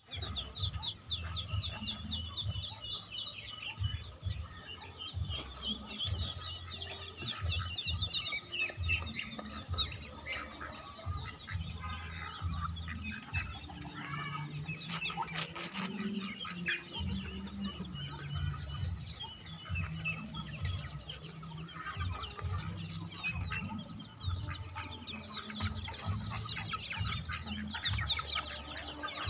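Mixed flock of ducks, ducklings and chickens calling: chickens clucking and many short, high peeps overlapping, over a low rumble.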